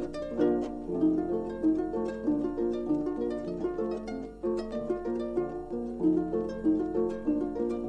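Solo harp playing a cheerful Tyrolean folk tune from a vinyl record, a quick run of plucked notes ringing over one another.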